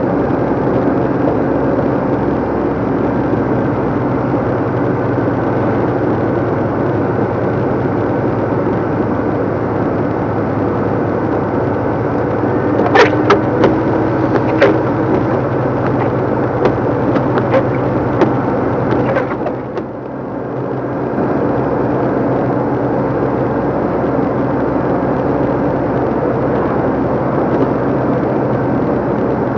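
A 2014 DAF LF55 220 lorry's diesel engine runs steadily under way, heard from inside the cab. A run of sharp knocks and rattles comes about halfway through. Near two-thirds of the way in, the engine sound drops away briefly and then builds back up.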